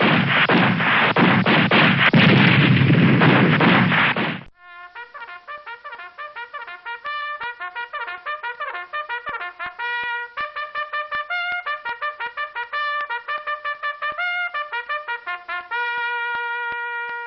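Battle sound effect of dense, rapid gunfire and blasts that cuts off abruptly about four and a half seconds in. A bugle then plays a fast call of short tongued notes, ending on a long held note.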